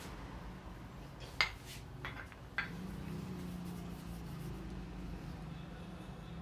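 Three sharp clicks in quick succession, about a second and a half in, the first the loudest, over a steady low hum.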